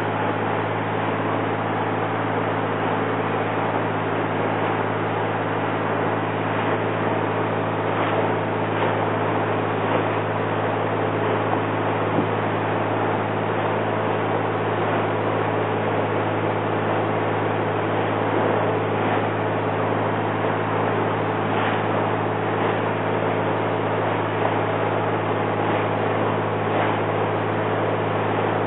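Inboard engine of a 1954 Chris-Craft 22-foot Sea Skiff running steadily under way, a constant low drone, with a hiss of wind and water rushing past the hull.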